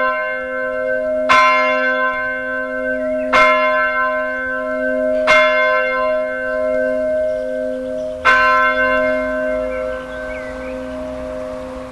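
A 1948 Eijsbouts bronze church bell, 290 kg and tuned to C, swinging and struck by its clapper four times, about two seconds apart with a longer gap before the last stroke. Each stroke rings on as a sustained, many-toned hum, which fades after the last stroke.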